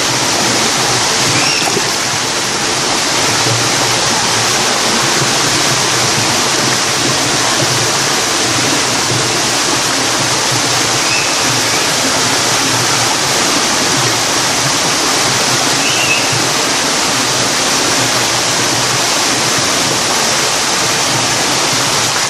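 Erawan Waterfall's cascades: water rushing steadily over the falls, an unbroken loud hiss.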